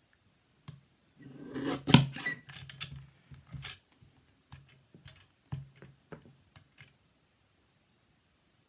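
Paper trimmer cutting card: the blade carriage slides along its rail through the card with a scraping sound and a sharp click about two seconds in, followed by lighter clicks and taps as the card is shifted and the trimmer is worked again.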